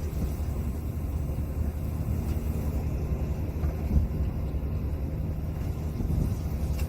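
Fishing boat's engine running at idle, a steady low rumble.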